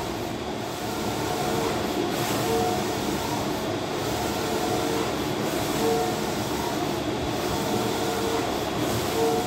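Wide-format flex banner printer running, its print-head carriage shuttling back and forth across the banner with a steady mechanical rumble and whir. A short motor whine recurs about once a second.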